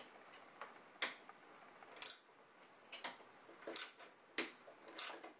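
A series of sharp metallic clicks, roughly one a second with a few closer together, from a hand tool working the pocket bike's handlebar clamp bolts as they are tightened down.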